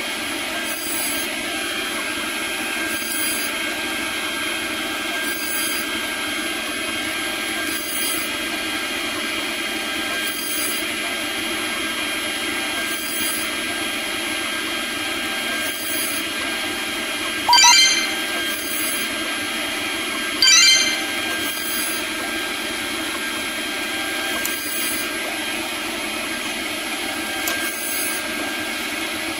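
CNC router spindle running with a small end mill cutting Delrin plastic: a steady whine over cutting noise. Twice, past the halfway point, a brief louder rising whine cuts in.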